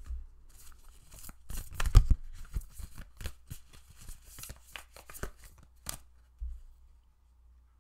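A deck of cards being shuffled by hand: a quick run of irregular crisp snaps and slaps, with a heavier knock about two seconds in. The shuffling stops near the end.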